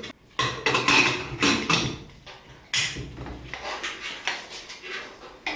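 An aluminium pressure cooker lid being fitted and turned shut by its handle: a run of metal clinks, scrapes and sharp knocks, with a louder knock a little before halfway, then the cooker is handled and lifted.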